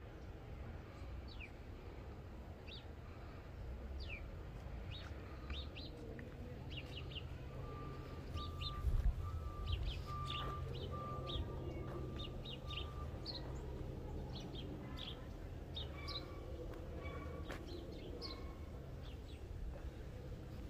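Small birds chirping on and off, many short downward-sliding chirps, over a low background rumble. For several seconds in the middle a run of short, evenly spaced notes repeats.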